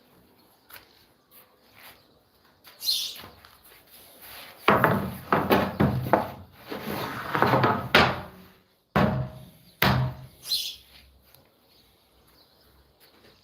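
Wood being handled in a workshop: a few seconds of rough scraping or rubbing strokes, then two sharp wooden knocks less than a second apart.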